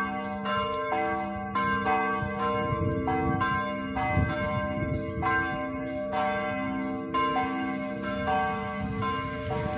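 Bells struck one after another at different pitches, about one or two strikes a second, each note ringing on into the next, like church bells being rung. A low rumble sits underneath in the middle.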